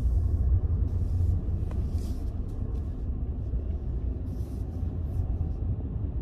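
Steady low rumble of a vehicle in motion, with a faint hiss above it.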